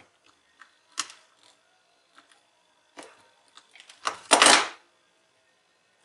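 Sharp clicks and small cracks of a utility knife cutting and prising open the moulded plastic sleeve of a 3.5 mm headphone jack, a few spaced about a second apart. A louder scrape lasting about half a second comes a little after four seconds in.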